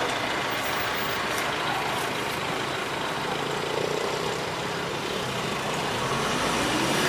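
Steady engine noise of a nearby motor vehicle running, amid urban background noise.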